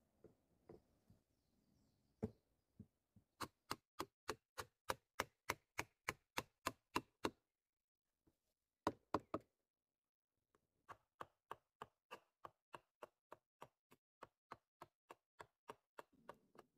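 Hatchet blows on wood, sharp knocks in quick runs of about three a second, broken by a short pause near the middle.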